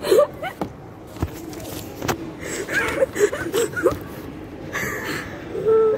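Women's voices giggling and making short wordless exclamations, with a few sharp knocks, the loudest right at the start.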